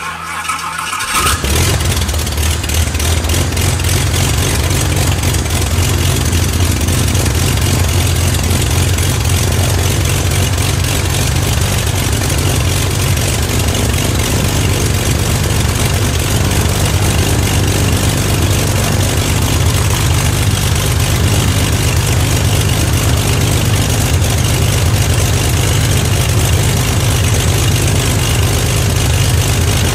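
Corvair air-cooled flat-six aircraft conversion engine in a Zenith 601 starting for its first run: the starter cranks briefly, the engine catches about a second in and settles into a steady idle, turning the propeller.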